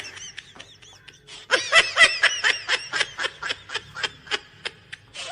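A person laughing in quick, high-pitched bursts: a short burst at first, then a longer, louder fit of laughter that tails off.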